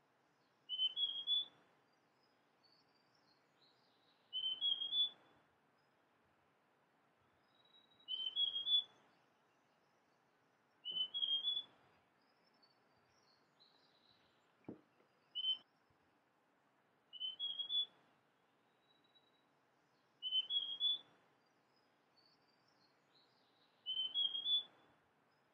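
Male large niltava (Niltava grandis) singing: a short phrase of about three rising whistled notes, repeated every three to four seconds, with fainter twittering from other birds higher in pitch.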